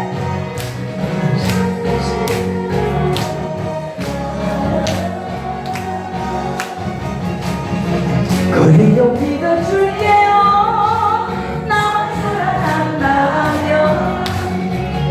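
Korean trot music with a steady beat and singing over it.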